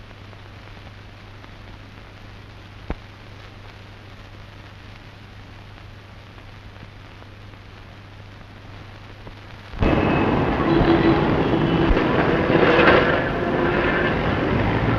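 Faint hiss and a steady low hum from an old film soundtrack, with a single click about three seconds in. About ten seconds in, it cuts suddenly to loud city street traffic, with car horns honking.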